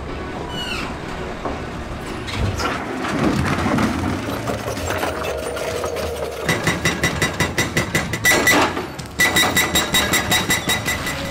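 Hydraulic breaker on a CAT 335F excavator hammering rock in rapid, evenly spaced strikes, about six a second with a metallic ring, in two runs with a short pause between them. Before it starts, heavy machinery engine noise.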